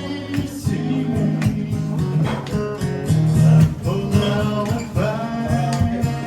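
Acoustic guitar strummed in a steady rhythm, with a voice singing over it: one performer singing to their own guitar.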